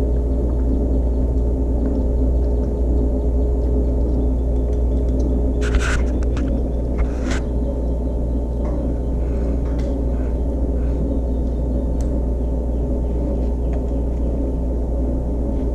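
Steady low drone of sustained, gong-like tones, with a few short clicks about six and seven seconds in.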